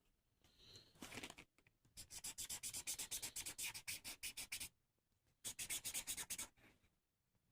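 Squeaky scratching from something rubbed rapidly back and forth, about eight strokes a second. It comes in bursts: a brief one near the start, a long run from about two seconds in, a pause, then a shorter run around five and a half seconds.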